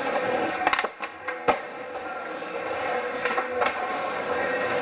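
Skateboard wheels rolling on a wooden mini ramp, with a few sharp clacks as the board and trucks hit the ramp.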